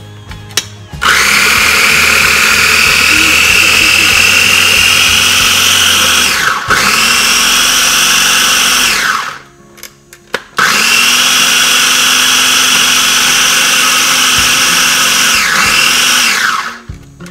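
Small electric food chopper running loud as it chops leafy greens, in two long runs with a short pause between. Its whine dips and picks up again briefly during the first run and falls away as the motor spins down at the end.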